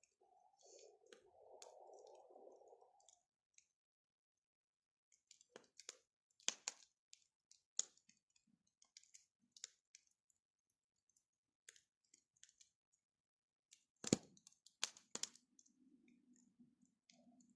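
Faint wood bonfire crackling: sparse, irregular pops and clicks, with a few sharper pops about a third of the way in and again past the middle.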